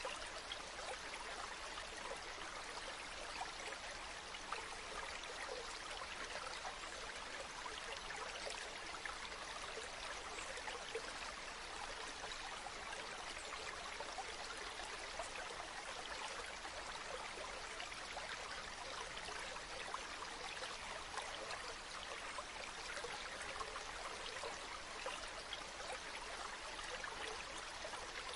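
Water flowing steadily, a continuous even rush with fine splashing texture, like a stream.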